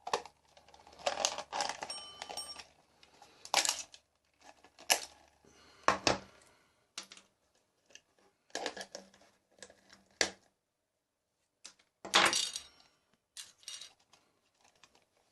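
Small metal parts being pulled out of an alarm clock and set down: scattered clicks, clinks and short rattles, with one brief metallic ring about two seconds in.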